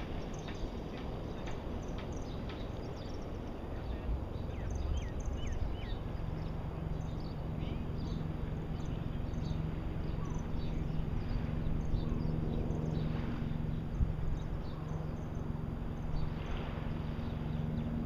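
Lagoon shore ambience: a steady low rush of wind and shallow water, with scattered high chirps of small birds. From about six seconds in, a faint steady low hum joins.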